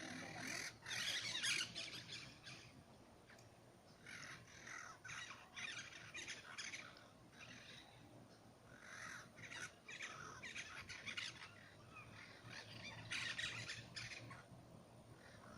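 Birds calling in repeated bursts of harsh, noisy calls, with louder bouts about a second in and near the end.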